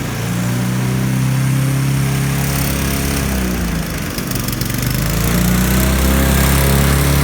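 Honda HRR216 lawn mower's four-stroke engine running after its cleaned carburetor was refitted and the throttle linkage reconnected, running 'not bad'. Its speed sags a little past halfway through, then picks back up.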